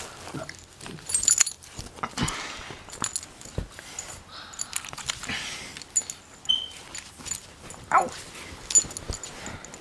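Beagle puppy playing on a bed: the metal tags on its collar jingle in short clicks, with the bedding rustling, and the puppy gives a short falling whine about eight seconds in.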